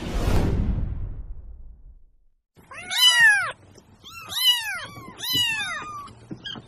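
A whoosh from an animated logo intro fades out, then a kitten meows three times in high calls that each rise and fall in pitch, with a fainter short meow near the end.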